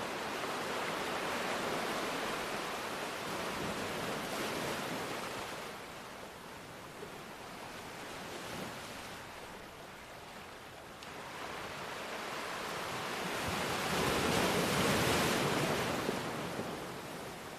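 Ocean waves breaking and washing in, a rushing surf that eases into a quieter lull through the middle and swells up again, loudest a little before the end.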